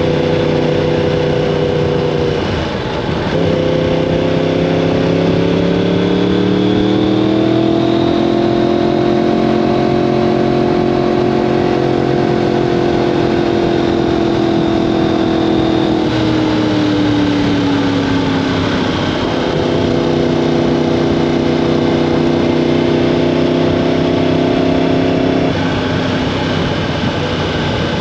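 Yamaha R1M's crossplane inline-four engine running through an Akrapovic exhaust. Its pitch dips briefly, climbs over several seconds and holds steady for a while, then falls and holds at a lower speed, shifting once more near the end.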